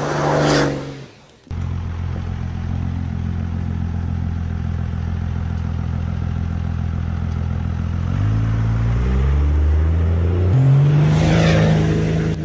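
Dodge Dakota R/T's V8 engine: a short whoosh with a falling pitch, then after an abrupt cut a steady engine note that rises in pitch in steps from about eight seconds in, as it accelerates, and swells into a loud whoosh near the end.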